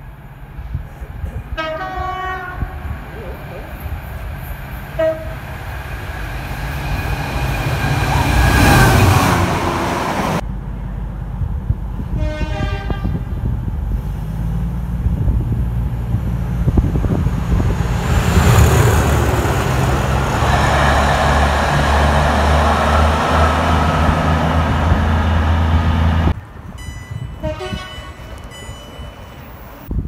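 Train horns sounding in short blasts three times, between the heavy rumble and rush of trains passing through at speed.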